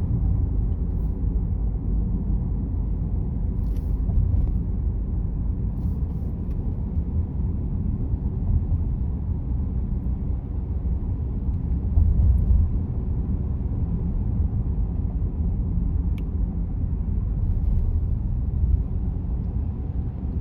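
Steady low rumble of tyre and road noise inside a moving car's cabin, with a few faint ticks.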